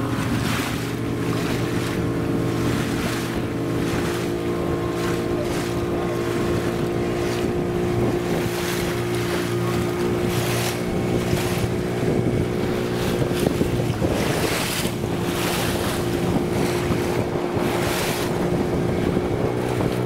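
A small motorboat's engine running steadily under way, stepping up slightly in pitch about a second in. Wind buffets the microphone and water rushes past the hull in recurring gusts.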